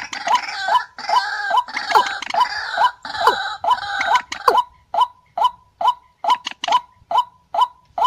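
Paddy-field rails calling, from a lure-call recording: a repeated short note comes about two to three times a second. Until about halfway other harsher, overlapping calls run over it. After that the evenly spaced notes go on alone.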